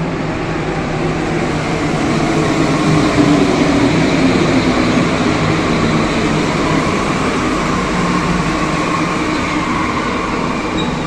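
Rubber-tyred Santiago Metro train pulling into an underground platform: a loud rush of running noise that builds over the first few seconds, then holds steady as the train slows. A faint whine starts rising near the end.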